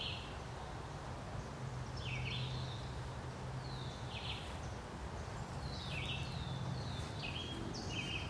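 Woodland ambience: a bird repeating short, high chirps that slide down in pitch, about a dozen of them, over a steady low outdoor background.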